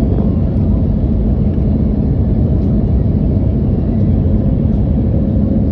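A vehicle engine running steadily, a constant low rumble.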